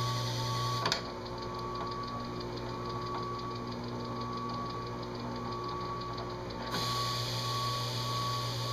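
Small DC motor spinning the engine-turning spindle, running steadily with a low hum. A click just under a second in; after it the high hiss drops away until about seven seconds in, then returns.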